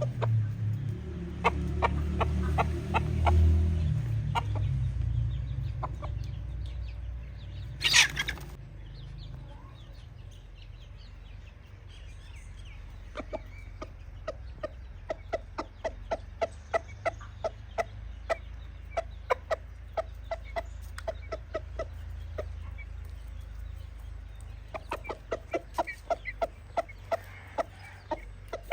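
A flock of free-range chickens clucking, with long runs of short, quickly repeated clucks through the second half. A low rumble sits under the first few seconds, and there is one loud, sudden burst of noise partway through.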